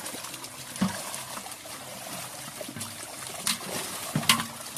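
Water churning and splashing in a crowded fish-harvest net as fish are scooped out with baskets and bowls, with a few sudden louder splashes about a second in and near the end.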